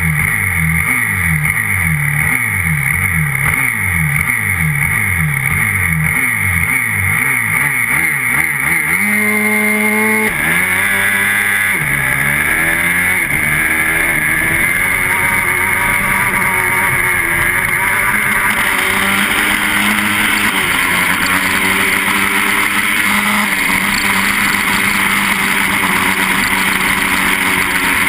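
A 125cc grass-track racing motorcycle engine, close up. It is revved in quick repeated blips, about one or two a second, then held at steady revs. About ten seconds in it launches, climbing through the revs, and runs hard at high revs for the rest, as at a race start.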